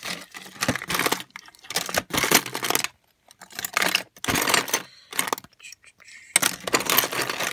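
Metal car keys, key rings and plastic key fobs jangling and clattering together as a drawer full of them is rummaged through. The sound comes in several bursts about a second long, with short gaps between them.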